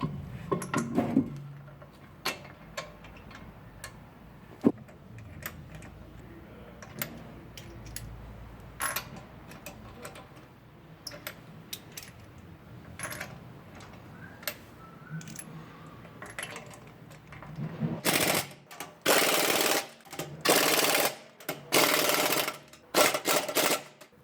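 Scattered sharp metallic clicks and knocks of hand tools at work on a car's brake, then, about eighteen seconds in, a run of six or so loud hissing bursts of about a second each.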